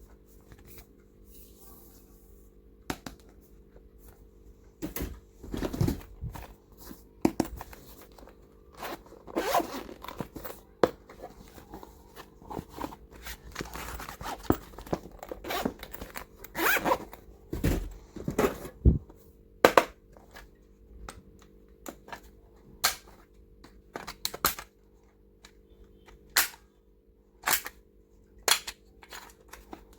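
Hands handling plastic stationery and toy packaging: scattered clicks and taps, a busier stretch of rustling and scraping in the middle, then single sharp clicks about a second apart near the end, over a low steady hum.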